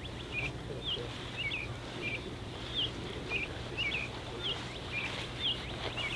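A bird chirping over and over, about two short calls a second, over a steady low background hum.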